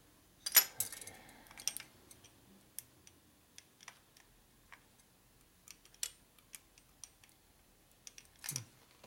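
Light metallic clicks and clinks from hands working the loose adjustable pushrods and their cover tubes on a Harley-Davidson Shovelhead V-twin during a valve adjustment. There is one louder metal clank with a short ring about half a second in.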